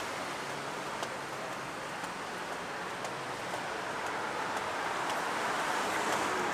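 Steady outdoor street ambience: an even wash of traffic and town background noise, with a few faint light ticks.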